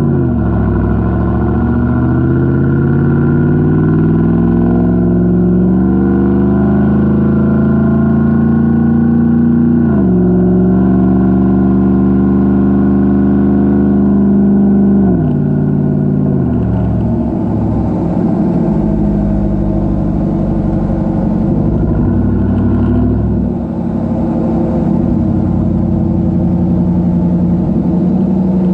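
2014 Chevrolet Silverado pickup with a muffler-delete true dual exhaust, accelerating hard. The engine note climbs, drops at an upshift about ten seconds in, holds, drops again at about fifteen seconds, then settles to a lower, steadier run.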